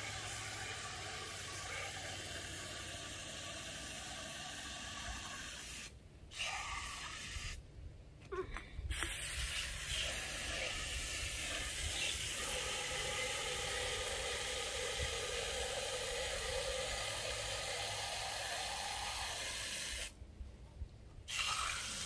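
Water spraying from a garden hose nozzle into empty aluminium soda cans, filling them. The steady hiss breaks off twice for a second or so, around six and eight seconds in, and stops about two seconds before the end.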